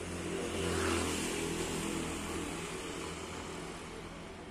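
A motor vehicle's engine running, growing louder to a peak about a second in and then slowly fading away.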